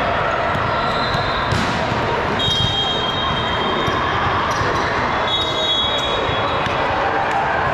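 Volleyball play in a large, echoing gym: sharp ball hits and thuds, brief high squeaks, and a steady murmur of players and spectators.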